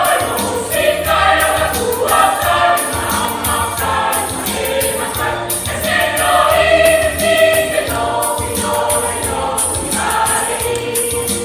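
A church choir singing a hymn in parts, with instrumental accompaniment and a rhythmic shaken percussion.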